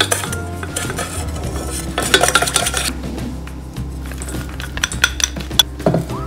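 Wooden chopsticks scraping and clinking against a stainless steel mixing bowl while stirring a soy sauce dressing, with a burst of brisk stirring about two seconds in and a few sharp clinks near the end. Soft background music plays underneath.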